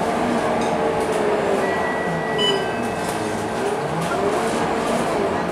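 Scania K230UB bus heard from inside the passenger cabin while under way: its drivetrain gives a steady whine that dips and rises in pitch over the noise of the running engine and road.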